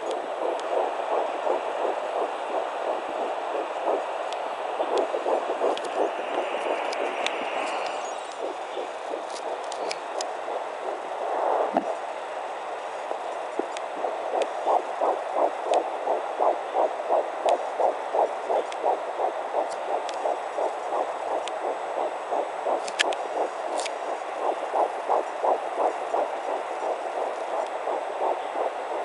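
Fetal heartbeat at 10 weeks picked up by a handheld fetal Doppler: a fast whooshing pulse at about 159 beats a minute. The beat is less distinct for a few seconds around the middle, then comes through clear and steady.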